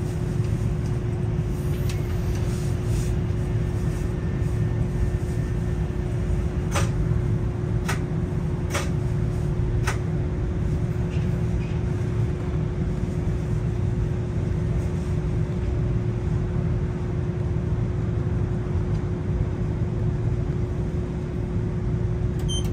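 Nagasaki Electric Tramway streetcar heard from inside at the front: a steady low rumble with a constant hum, and a few sharp clicks between about seven and ten seconds in.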